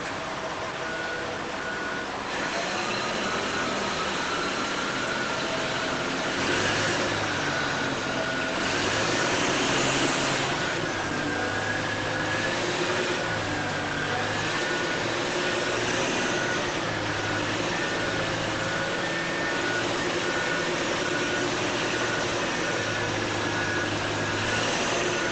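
Remote-controlled toy construction machines working: small electric motors and gearboxes whining, their pitch rising and falling, with a short reversing-style beep repeating evenly about twice a second.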